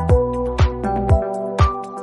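Electronic background music with a steady beat, a kick drum about twice a second under held synth chords.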